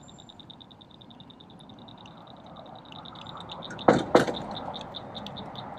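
A frog calling: a long train of high clicking notes, fast at first and slower in the second half. Two sharp knocks about four seconds in are louder than the frog.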